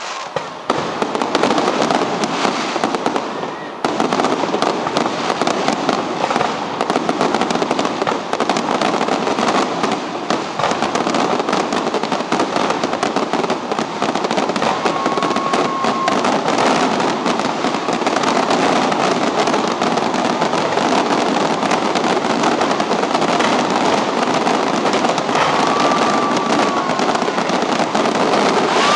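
Fireworks display: a continuous barrage of aerial shells bursting, many overlapping bangs with no break.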